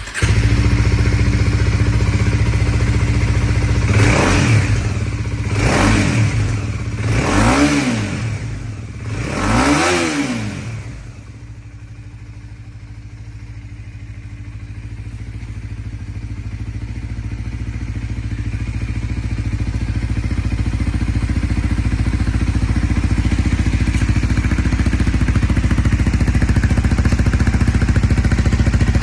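Kawasaki Ninja 250SL's single-cylinder engine through a LeoVince aftermarket muffler. It comes in suddenly and idles, is revved four times in quick succession a few seconds in, then settles back to a steady idle that grows gradually louder toward the end.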